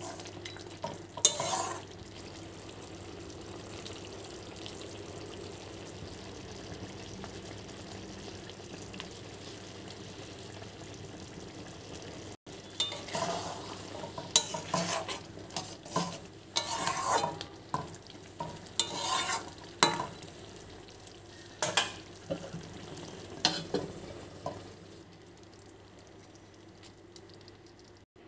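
Spatula stirring and scraping through thick, wet spiced rice in a metal kadai over a steady frying sizzle. There is a short flurry of strokes about a second in and a long run of irregular scraping from about halfway to near the end, when it goes quieter.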